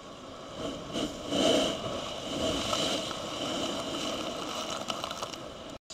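Ocean wave surging over lava rock: seawater rushing and splashing, loudest about a second and a half in, then a steady wash of foaming water.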